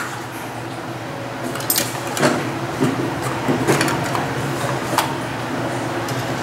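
Sharp plastic clicks and taps, about five spread through, as a child's spincast fishing reel is handled and its cover fitted back on, over a steady low hum.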